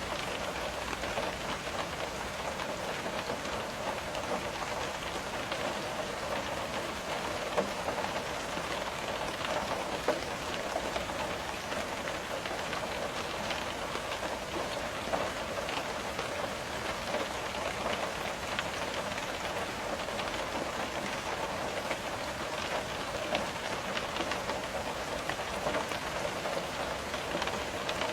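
Steady rain on a window, a dense, even patter of drops with a few sharper single drops standing out.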